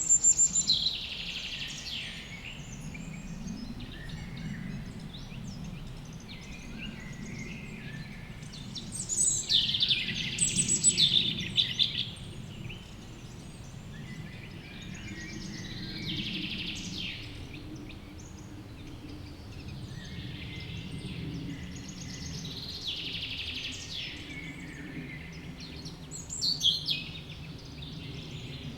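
A small woodland songbird singing the same short phrase about five times, each opening with high falling notes and running into a fast trill, with other birds calling faintly between. A low steady hum of flies buzzing near the microphones runs underneath.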